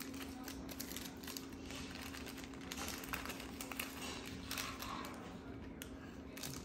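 Kitchen knife tapping on a plastic cutting board as bell peppers are sliced, a run of quick irregular clicks, with a small plastic wrapper crinkling, over a steady low hum.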